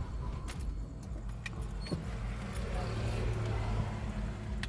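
Mitsubishi Mirage G4 engine running at idle with a steady low hum and a few light clicks. The scan tool has logged a cylinder number 1 misfire, which the mechanic suspects is down to a spark plug.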